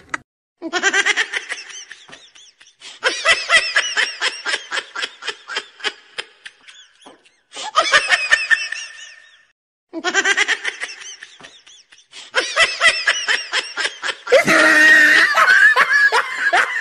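Repeated bursts of rapid, pulsing laughter, cut together with short dead-silent gaps between them, as in an edited-in laughter sound effect; the laughing grows denser and louder near the end.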